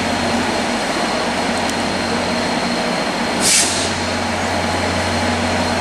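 Two F40PH-2 diesel locomotives, each with a 16-cylinder EMD 645 two-stroke engine, running steadily as they haul the train out. A short hiss of air cuts in about three and a half seconds in.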